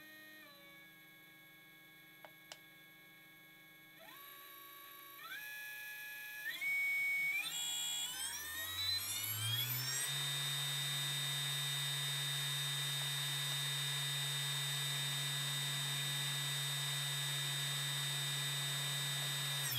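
Brushless outrunner motor of about 340 KV, spinning with no propeller on 24 V. It starts as a faint whine, climbs in pitch in steps over several seconds, and about ten seconds in settles into a steady high whine at its full no-load speed of around 8400 rpm.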